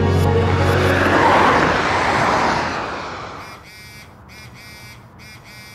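A loud rushing noise swells and dies away over about three seconds, then a mobile phone buzzes in short repeated pulses, an incoming call.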